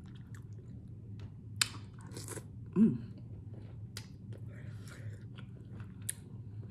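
Close-miked mouth sounds of a person eating rotisserie chicken and potatoes: chewing with several sharp wet clicks and smacks. A short voiced sound, like a brief hum, comes nearly three seconds in and is the loudest moment, over a steady low hum.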